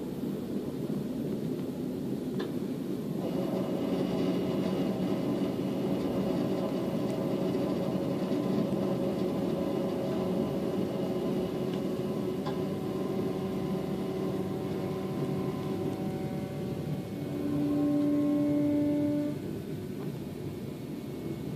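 A passenger train running along the line, heard from inside the carriage: a steady rumble and rail noise, with a hum of several steady tones coming in about three seconds in. Near the end a louder, single steady tone lasts about two seconds.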